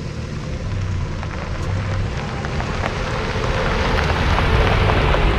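A 2017 Nissan Frontier pickup's four-cylinder engine running as the truck drives up across gravel, growing louder as it nears. Loose gravel crackles and pops under its Maxxis Bravo all-terrain tyres.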